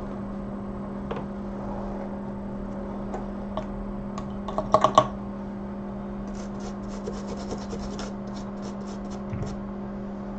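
Small tool clicks and a quick run of light ticks and scrapes from work on an iPhone 6 logic board during microsoldering repair, over a steady low electrical hum. A loud cluster of clicks comes about halfway through.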